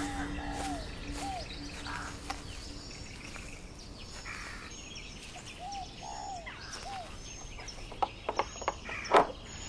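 Birds chirping in short calls over a steady outdoor background. Near the end come a few sharp clicks and knocks, the loudest a little before the end, as a wooden door's latch is worked.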